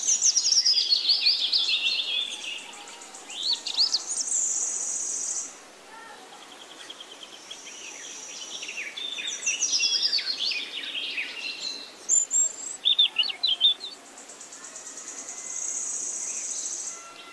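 Jungle babblers calling: bursts of chattering calls made of quick falling notes, with squeaky high notes in between and quieter gaps. A steady high buzz comes in twice.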